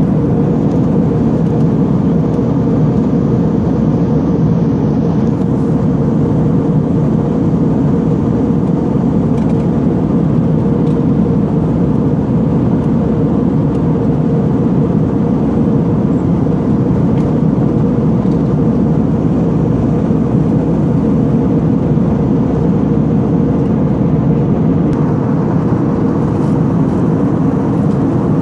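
Steady cabin drone of an Airbus A320 in flight, heard from inside the cabin: engine and airflow noise with a steady hum running through it.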